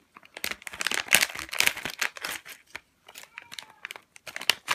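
A plastic LEGO Mixels bag crinkling as it is pulled and torn open by hand. Clusters of rustling crackles, with a short lull a little past the middle.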